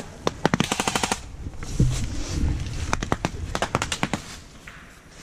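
Airsoft electric gun firing on full auto: a rapid, even rattle of shots lasting about a second near the start, then a second, more ragged burst about three seconds in.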